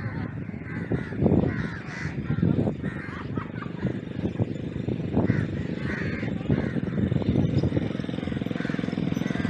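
Crows cawing repeatedly over faint distant voices, with a small engine running ever louder near the end: an ATV on the sand.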